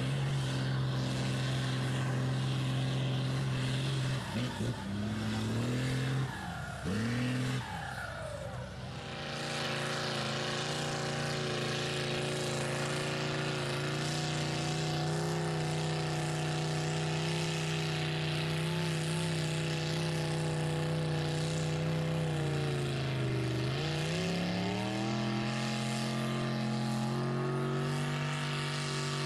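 Engine of a lifted mud-bogging truck running hard at high revs as it churns through a mud pit. Its pitch jumps about and drops out briefly in the first third, then holds steady, sags sharply and climbs back to a higher pitch near the end.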